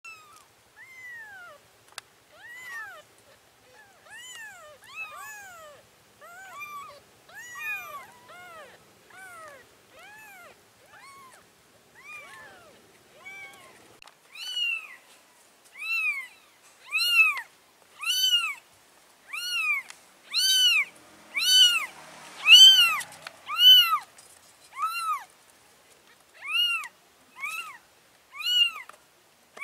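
Young kittens mewing over and over, about one high-pitched rising-and-falling cry a second, the cries getting louder about halfway through.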